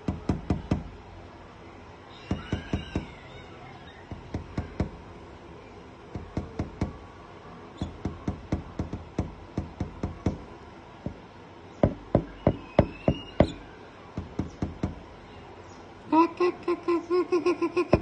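Common myna pecking at a window pane with its bill: short bursts of three to six sharp taps on the glass, repeating every second or two. Near the end a fast, pitched chatter joins the tapping.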